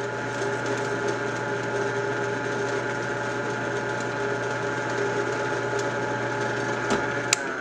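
Benchtop drill press motor running at a steady speed, spinning a magnet-array tool demagnetizer in its chuck, with a steady hum. Near the end a click and the motor is switched off, its hum beginning to wind down.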